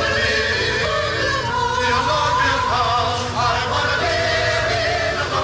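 Music with singing: held, wavering sung notes over a steady accompaniment.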